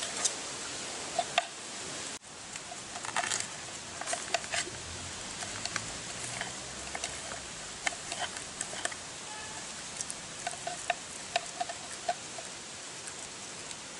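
Knife blade scraping scales off a snakehead (murrel) fish: irregular scratchy clicks, several close together at times, over a steady hiss.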